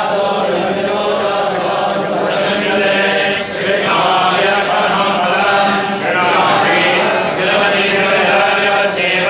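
A group of men chanting together in unison, a continuous recitation with brief breaks between phrases.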